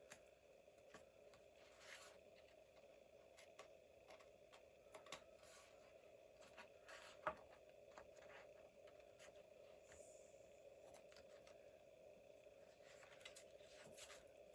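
Faint, scattered snips of scissors trimming paper edges, the sharpest a little past the middle, over a faint steady hum.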